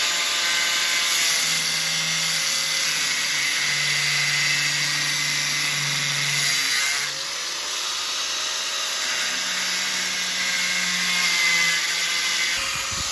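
Power grinder with a cut-off wheel cutting through a rusted, seized steel collar and shaft, a continuous high whine and hiss that dips and shifts in pitch about seven seconds in.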